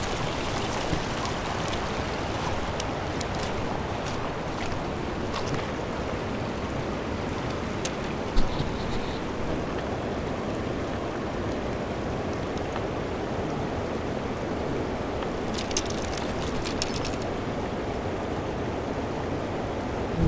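Steady rush of a river running over a pebble shoal, with scattered small clicks and a single knock about eight seconds in from a caught fish being handled over the stones.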